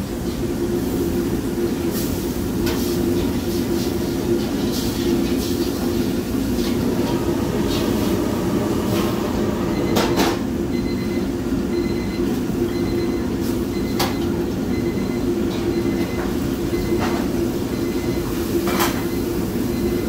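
Commercial gas wok burner that comes on suddenly and runs with a steady, loud rush of flame, with a few sharp metal clanks of a utensil against the wok.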